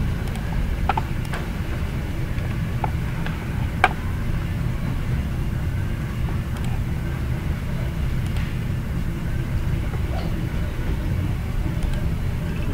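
Steady low background rumble with a few short, sharp computer-mouse clicks in the first four seconds, the loudest about four seconds in, as sketch tools are picked and lines trimmed.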